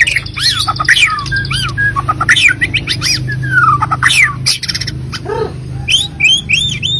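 White-rumped shama (murai batu) singing: a fast, varied run of whistles sweeping up and down in pitch, broken by short sharp notes and clicks.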